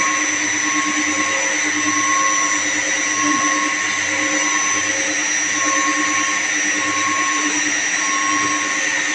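Steady drone of electric-motor-driven machinery in a chiller pump room: a constant hum with a high whine over it, unbroken throughout.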